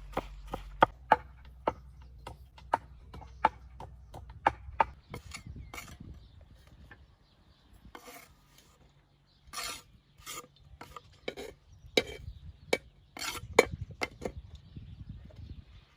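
Food-preparation knocks and clicks. Sharp strikes come about two a second for the first five seconds, then thin out into scattered knocks and a brief scraping rush before the strikes pick up again.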